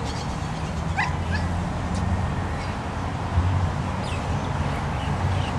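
A dog whining and yipping briefly a few times, one short rising whine about a second in and more near the end, over a steady low background rumble.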